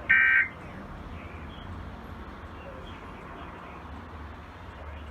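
Emergency Alert System end-of-message data burst on NOAA Weather Radio: one short, shrill digital warble lasting about a third of a second just after the start. It is one of the closing bursts that mark the end of the alert message, and steady radio hiss and hum follow it.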